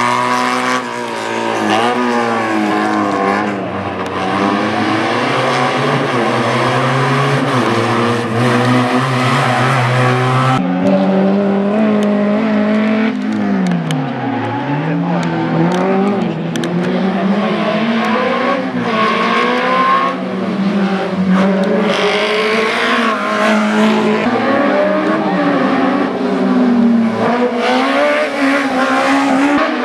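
Race car engine revving hard and easing off again and again through a slalom course, its pitch rising and falling every second or two.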